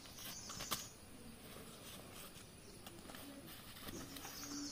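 Faint, low cooing of a dove, with a sharp soft tap about a second in.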